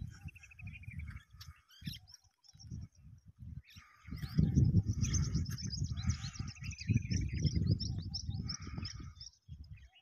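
Small birds chirping and trilling, with a fast run of repeated notes near the start and busy high chirping in the middle. An irregular low rustling noise close by is louder under them from about four to nine seconds in.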